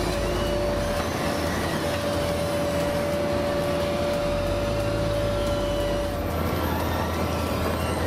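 SD 135 C tracked asphalt paver running steadily as it crawls forward on its tracks. Its engine rumbles under mechanical noise, and a steady whine sits above it that drops out briefly about a second in and again near the end.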